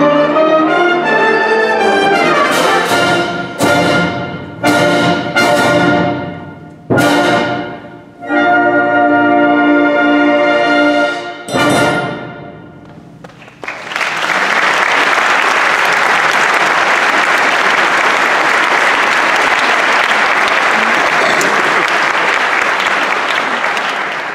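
A wind ensemble plays the closing bars of a piece, a series of sharp accented full-band chords, with the last chord dying away in the hall about 12 seconds in. Audience applause starts about 14 seconds in and carries on steadily.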